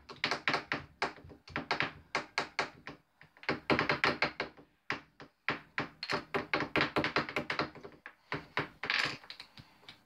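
Small hammer tapping a chisel into a plaster fossil-dig block: quick sharp taps, about five a second, in runs broken by short pauses.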